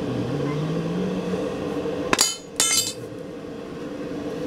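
Two sharp, ringing clinks of steel striking steel, about half a second apart, over a steady low hum.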